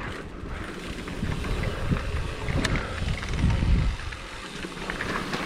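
Electric mountain bike being ridden along a wet, muddy trail: a low rumble of tyres and wind on the microphone, with scattered clicks and rattles from the bike. It is loudest about three and a half seconds in.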